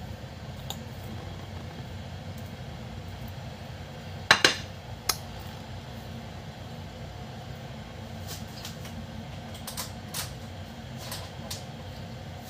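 Kitchenware clinking and knocking over a steady low hum: two loud sharp knocks about four seconds in, a smaller one just after, and a few lighter ticks later.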